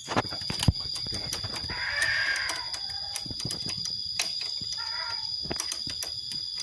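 Chickens calling, with a rooster-like call about two seconds in and clucking near five seconds, over scattered sharp clicks and knocks.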